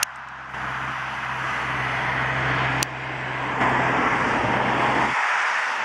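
Aircraft tug towing an Airbus A340-600: a steady low engine hum under a constant rushing noise, with a sharp click about three seconds in. The hum cuts off suddenly about five seconds in, leaving the rushing noise.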